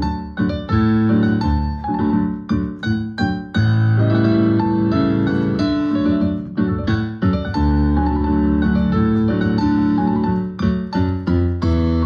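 Solo piano music: short, detached chords for the first few seconds, then longer held chords, then short chords again near the end.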